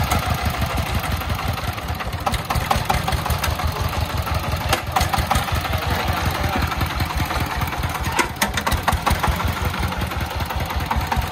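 24-horsepower single-cylinder diesel engine of a three-wheeled công nông truck running at a steady low speed, a rapid even chugging of low thumps. A few sharper knocks come about eight seconds in.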